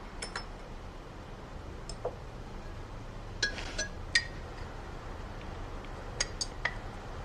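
Tableware clinking lightly at a meal: scattered short, ringing clinks in a few small clusters, over a faint steady low room hum.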